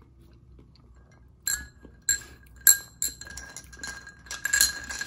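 A glass clinking in a run of sharp clinks beginning about a second and a half in, with a ringing tone that carries on between them.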